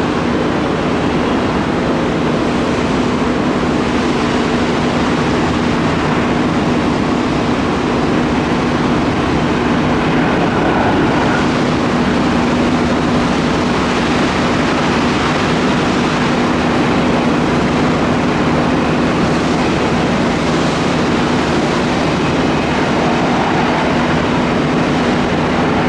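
Boeing 757 jet airliner rolling out on the runway just after touchdown: its two jet engines give a loud, steady rumble with a hum running through it as it slows down.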